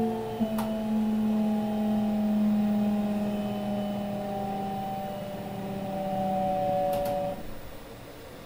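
Mitsubishi GTO VVVF inverter of a Kintetsu 22000 series ACE limited express, heard from inside the car: several steady motor tones slowly fall in pitch as the train slows, then cut off about seven seconds in, over the rumble of the running train. A couple of sharp clicks are also heard.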